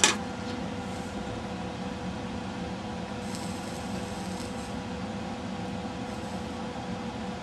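Steady background hum of running equipment, with a faint steady tone through it and a faint hiss about three seconds in.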